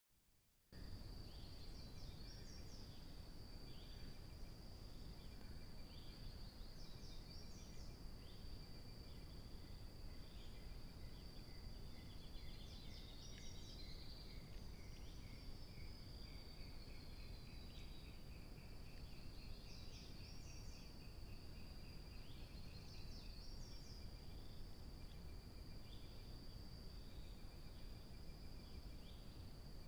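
Night insects, crickets and the like, keeping up a high continuous trill with short chirps every few seconds and a run of quick ticks midway, over the low hiss of the trail camera's microphone.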